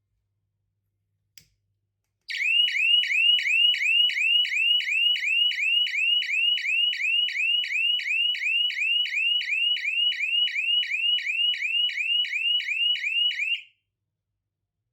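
Homemade electronic fire alarm circuit sounding its siren: a fast run of identical rising whoops, about three a second, starting about two seconds in and cutting off suddenly near the end. A faint click comes just before it.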